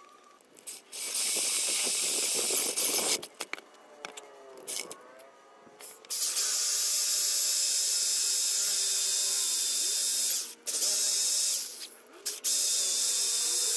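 Cordless drill boring holes in a white mahogany post with a spade bit, running in several runs with short stops: a run about a second in, then a long run from about six seconds in with two brief pauses near the end.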